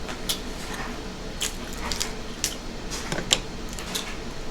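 Eating sounds: chewing with scattered soft smacks and clicks.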